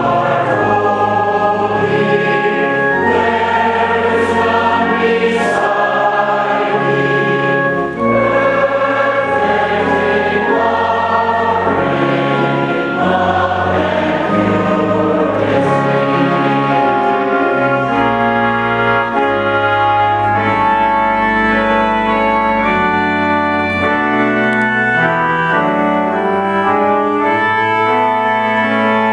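A hymn sung by many voices with organ accompaniment, the organ holding long low notes beneath.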